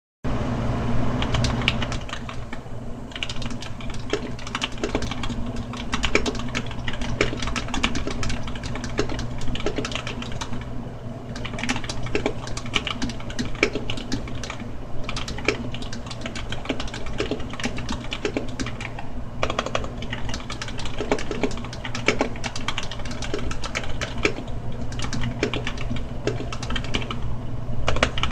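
Typing on a custom mechanical keyboard with lubed Gateron Black linear switches, tuned stabilizers and an acrylic case: a continuous run of irregular keystroke clacks. A steady low hum sits underneath.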